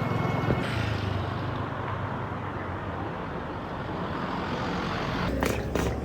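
A motor vehicle's engine running steadily, with a low, evenly pulsing drone under road noise and a few short clicks near the end.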